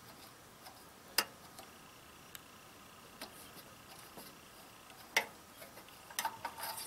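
A few light, sharp clicks and taps spaced a second or more apart, with a quicker cluster near the end: plastic funnel and oil bottle being handled at the garden tractor's oil filler.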